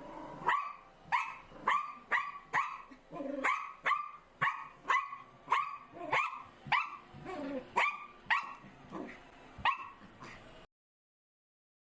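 Small Bichon Frise–poodle mix dog barking rapidly and insistently, about two sharp barks a second, alarmed by a robot vacuum cleaner. The barking cuts off suddenly near the end.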